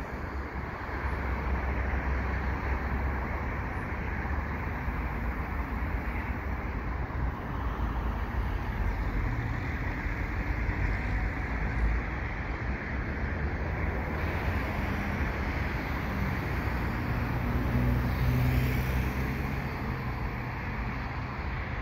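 Steady road traffic noise, a continuous roar of passing vehicles. A low engine hum swells near the end.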